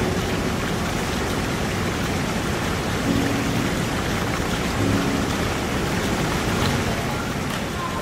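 Mountain stream and waterfall cascading over granite boulders and rock slabs: steady rushing water.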